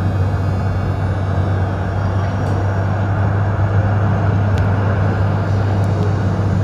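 Melbourne Z-class tram's steady low hum and rumble, with a few faint clicks.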